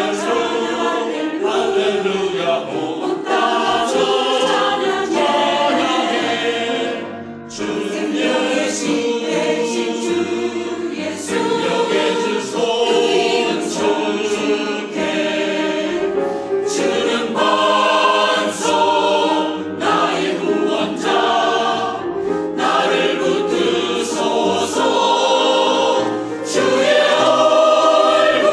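Mixed church choir of men's and women's voices singing a gospel anthem, with a brief pause for breath about seven seconds in.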